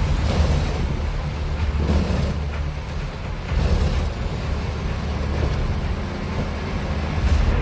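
Heavy machinery running: a steady, loud low engine rumble with a noisy mechanical wash over it.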